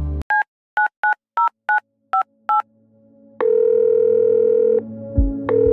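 A phone number keyed in on a telephone keypad: seven short two-tone touch-tone beeps. After a short pause, the line's ringing tone sounds twice as long steady tones, the call ringing through. Low thuds start up near the end.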